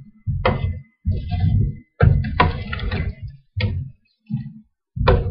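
A series of knocks and dull thuds, about seven in five seconds, each a sharp tap followed by a short low rumble.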